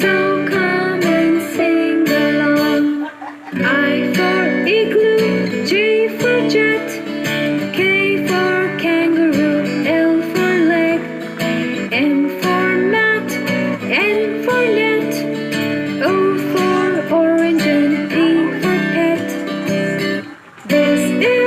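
Children's song music with acoustic guitar strumming and a sung melody, briefly dropping out about three seconds in and again near the end.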